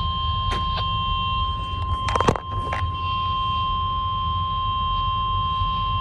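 NOAA Weather Radio's 1050 Hz warning alarm tone, one steady high tone held unbroken, sounding for the weekly test of the alarm. Under it runs a low steady rumble, with a few short clicks, the loudest about two seconds in.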